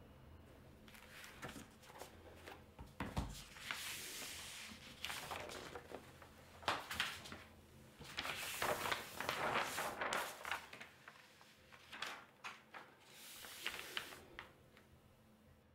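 Large sheets of paper rustling and sliding over a desk as they are lifted and turned over, in several bursts of a second or more, with a soft knock about three seconds in.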